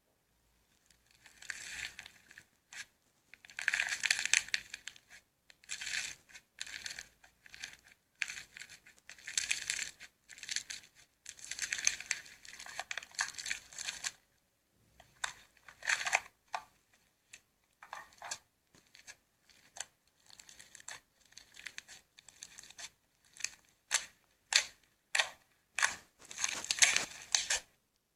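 Slime being squished and stretched, making crackling, crinkly sounds in irregular bursts with short pauses between them.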